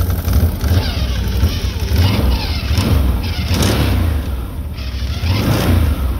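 Can-Am 1000 XMR ATV's Rotax V-twin engine running with the CVT cover off, its primary and secondary clutches spinning. It is revved up twice, once about two seconds in and again near the end, to test the primary clutch on its freshly bushed clutch weights.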